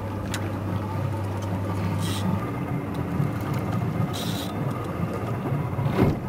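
Low steady hum and rumble of a boat's motor idling, with wind and water noise; the hum changes pitch about two and a half seconds in, and two short hisses come near the two- and four-second marks.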